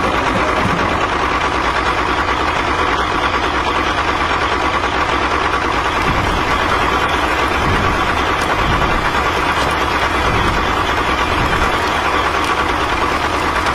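Tractor engine running steadily, a constant dense hiss over a low rumble.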